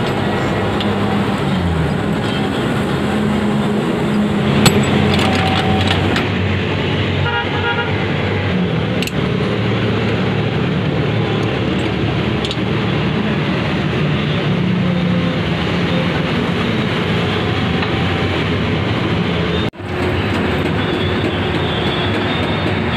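Busy road traffic running steadily close by, engines passing, with vehicle horns tooting now and then and a brief cut-out near the end.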